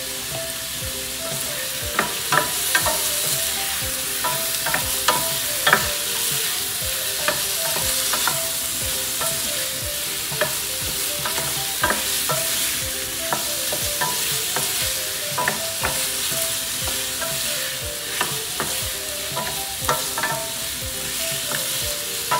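Chicken pieces and sliced onion sizzling in oil in a stainless steel sauté pan, stirred with a wooden spoon that knocks and scrapes against the pan again and again.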